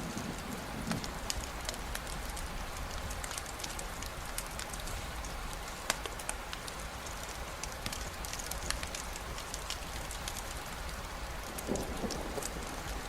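Steady rain falling on a surface: an even hiss dotted with many sharp individual drop ticks. A low rumble dies away in the first second, and another brief low rumble comes near the end.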